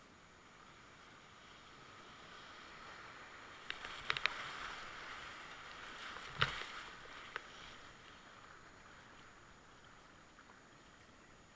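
Rushing whitewater as a kayak runs a river rapid, swelling to a peak midway and fading again, with a cluster of sharp knocks and splashes about four seconds in and a louder one around six and a half seconds.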